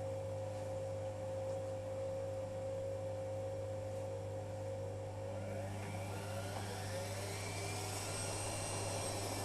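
Privileg Sensation 9415 washing machine running with a steady hum and a steady motor tone; about halfway through, the motor's whine starts climbing in pitch as the drum speeds up.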